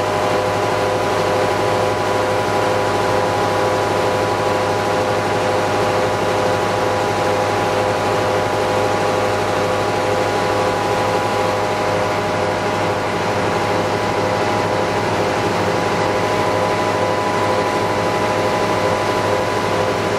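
The tug's Roots-blown EMD 16-567CCL, a sixteen-cylinder two-stroke diesel, running steadily under way: a constant low drone with a held whine above it that does not rise or fall.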